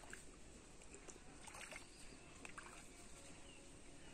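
Near silence: faint outdoor background noise with a few soft clicks.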